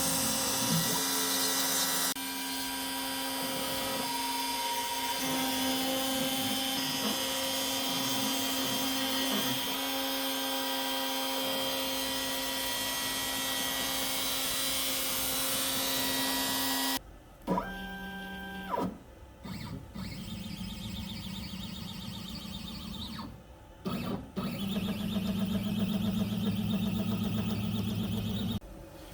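X-Carve CNC router running: for the first part a steady hiss with a constant hum from the spinning router spindle, then after a sudden cut, the machine's stepper motors whining in short moves that change pitch, stopping and starting.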